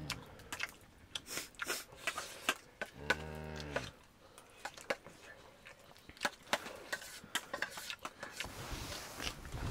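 Eating sounds at close range: scattered clicks and taps of a spoon against a metal plate, with chewing. A short low hum lasts about a second, a little over three seconds in.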